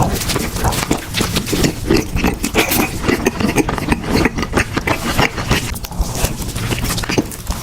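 Close-miked chewing and mouth smacking: a dense run of quick wet clicks and crunches as food is bitten and chewed.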